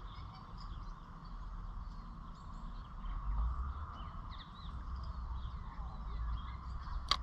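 Small birds chirping and twittering over a steady low rumble of wind and wharf ambience, with a single sharp click near the end.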